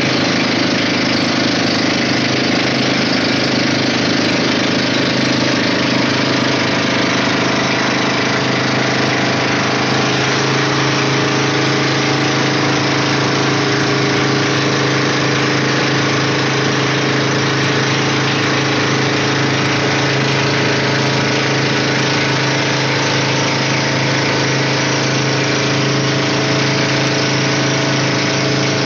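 Outrigger boat's inboard engine running steadily at cruising speed, its low drone unchanging, over a constant hiss of wind and water rushing past the hull.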